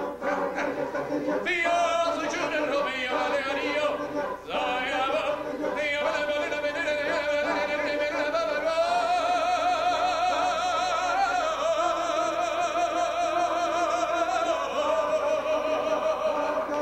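Cantor singing a solo line in full operatic voice with wide vibrato, moving between notes at first and then holding long, sustained notes through the second half.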